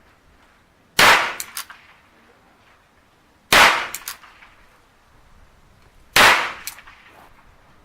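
Ruger New Bearcat .22 LR single-action revolver fired three times, about two and a half seconds apart, each shot sharp and followed by a few faint ticks.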